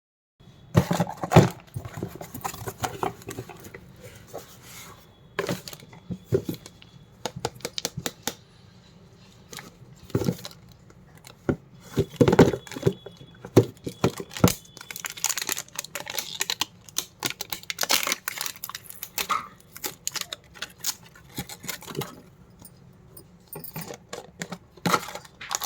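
Candy wrappers and plastic packaging being handled and torn open: irregular crinkling and tearing with scattered clicks and taps.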